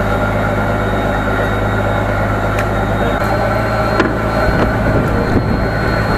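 Fishing boat's engine running steadily; its note steps slightly about three seconds in, and a sharp knock comes about a second later.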